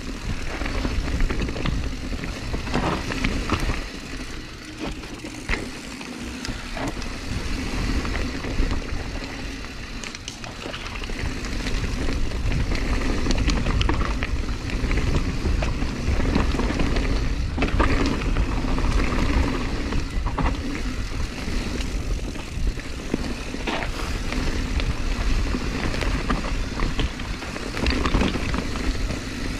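Mountain bike riding fast down a rough downhill trail. The tyres roll over dirt and roots, and the bike rattles and knocks over the bumps, all under a heavy, steady rumble of wind on the microphone.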